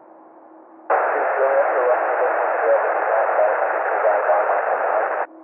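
Air traffic control radio receiver: faint hiss with a steady low hum, then about a second in a transmission keys up as a loud rush of static that cuts off suddenly near the end.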